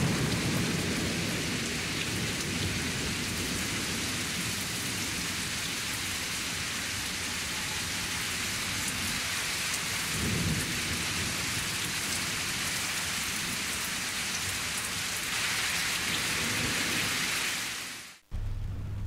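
Steady heavy rain with rolls of thunder, one right at the start and another about ten seconds in; the storm fades out quickly near the end.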